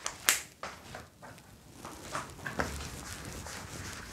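A few sharp clicks and taps, the loudest about a third of a second in, then lighter scattered taps and scuffs, from a person handling a marker and moving about at a whiteboard.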